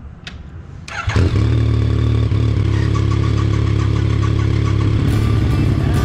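Suzuki V-Strom motorcycle engine cranked on its starter and catching about a second in, then idling steadily. It is a jump start of a battery that had gone flat while the bike stood for a week.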